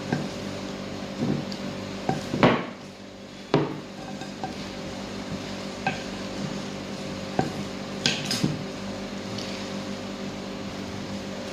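Wooden spatula stirring a moist tuna and grated-carrot mixture in a glass mixing bowl, knocking and scraping against the glass at irregular intervals. The loudest knocks come about two and a half and three and a half seconds in. A steady low hum runs underneath.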